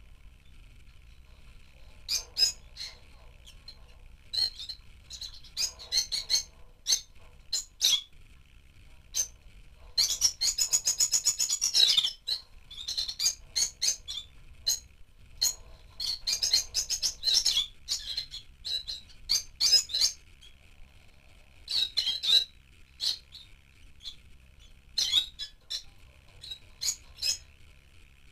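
Rosy-faced lovebirds chirping in an aviary: sharp, short high chirps come and go throughout. About ten seconds in, a burst of rapid, loud chattering lasts about two seconds.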